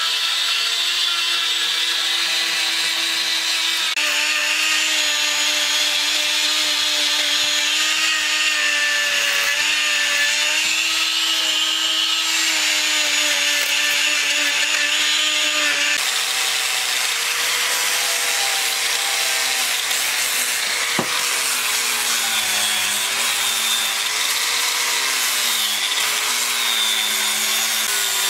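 Handheld electric power tools cutting and sanding a block of red wood, their motors whining steadily. A bit past halfway an angle grinder with a sanding disc takes over, its pitch dipping again and again as it is pressed into the wood.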